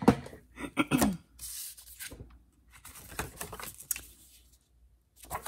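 Paper and cardstock being handled on a cutting mat: sliding and rubbing sounds, with a short hissy rasp about a second and a half in and a scattering of light taps and knocks as a paper panel is set in place and pressed down.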